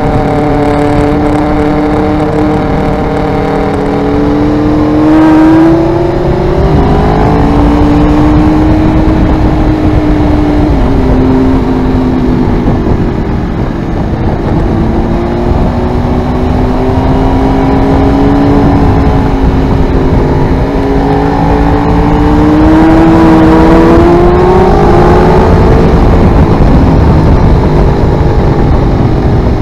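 Aprilia Tuono V4R's V4 engine through an Ozdany aftermarket exhaust, heard onboard under way. The revs climb and drop sharply several times as the bike accelerates and shifts up through the gears, over a steady rush of wind.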